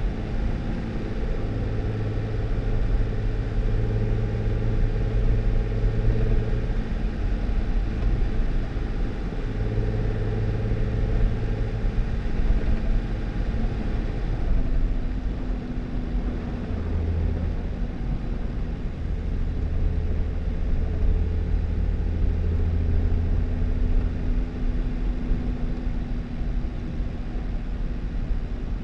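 2018 Jeep Wrangler driving on a snowy dirt road: a steady engine hum over tyre and road rumble. The engine note changes about halfway through.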